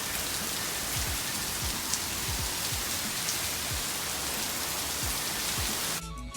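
Heavy rain pouring down steadily in a sudden downpour. Near the end it cuts to music with a beat.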